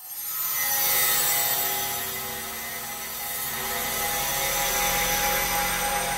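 Diversion software synthesizer playing an atmosphere preset: a dense, airy noise wash over steady held tones, swelling in from silence. A low rumble joins about four seconds in.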